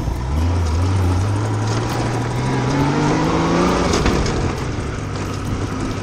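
Honda Goldwing motorcycle engine pulling away on a dirt track, its revs climbing for about four seconds, dropping at a gear change and then running steadily. Wind rushes over the microphone throughout.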